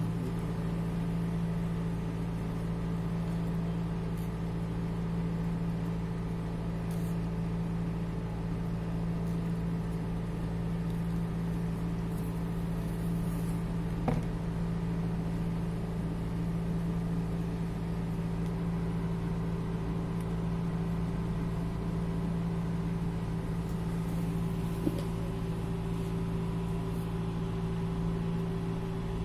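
A motor or engine running at a steady speed, a constant hum, with two sharp clicks, one about halfway through and one near the end.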